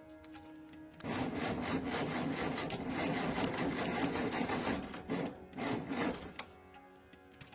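Rough, rasping scraping of a tool on a surface, like hand filing or sanding, lasting about four seconds, then two short strokes.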